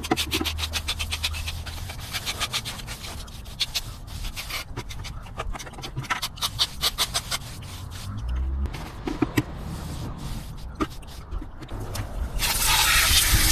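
Repeated short scraping strokes of a hand tool on stucco, coming in runs. About twelve seconds in, a loud hiss lasting under two seconds.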